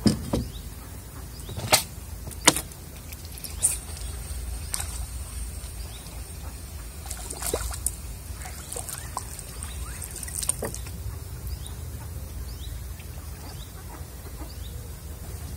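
Light trickling and splashing of pond water, with a few sharp knocks and clicks from handling fishing tackle while a small fish is landed, over a low steady rumble.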